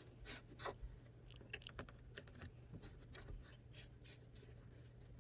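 Faint, irregular scratching and light clicks of a Willard's Tipper trimmer's blades shaving a Kamui Super Soft leather cue tip as the cue is turned slowly. A steady low hum runs underneath.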